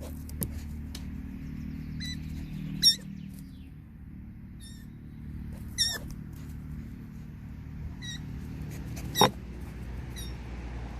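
Six-week-old roe deer fawn giving its high, wavering peep calls (fiepen), about six short calls spaced a second or more apart, the loudest about three and nine seconds in. These are the impatient calls of a hand-reared fawn left alone while its bottle is being fetched.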